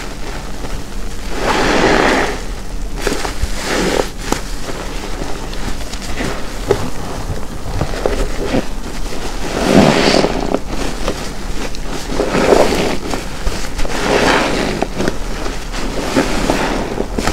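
A large car wash sponge soaked with detergent being squeezed by hand, wet and bubbly, in about six separate squeezes with small crackles between them.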